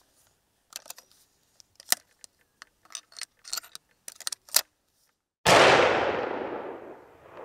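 Scattered small clicks and taps, then, after a brief dead silence, a single loud hunting-rifle shot with its echo fading away over about two seconds.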